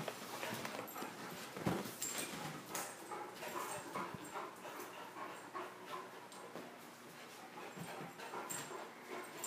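A Great Dane and a boxer puppy play-fighting: scuffling, paws clicking on the floor and dog noises, with one sharp thump a little under two seconds in.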